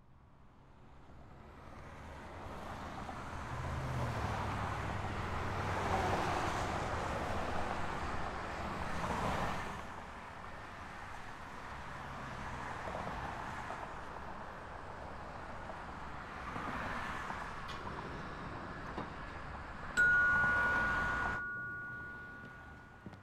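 Ambient rushing noise with a low hum, fading in and swelling and dipping. About twenty seconds in comes a sudden, loud two-tone electronic chime, which is cut off abruptly.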